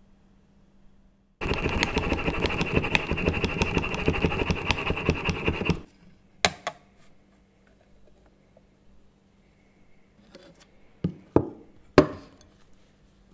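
Milk being frothed in a French press, the plunger pumped rapidly for about four seconds in a dense rattling rush. A couple of clicks follow, and near the end three sharp knocks with a brief ring.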